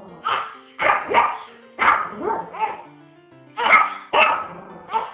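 Small dog barking in a string of short, sharp barks, about two a second.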